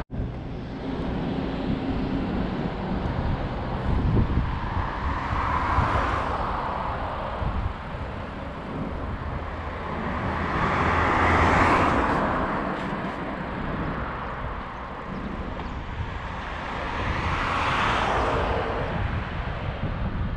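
Wind buffeting the microphone of a camera on a moving bicycle, a steady rumble, with three vehicles passing on the road alongside, each a hiss that swells and then fades away.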